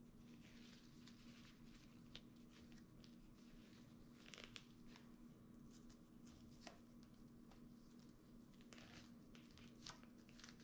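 Near silence: faint scattered rustles and light ticks of jute twine being pulled and tied around a paper-wrapped gift, over a low steady hum.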